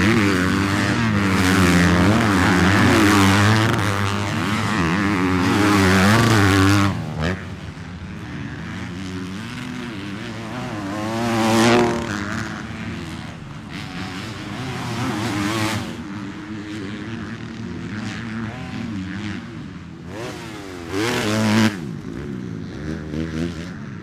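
Several motocross bike engines revving hard and rising and falling in pitch as the riders race past, loudest for the first seven seconds. Single bikes rev up and pass again about halfway through and near the end.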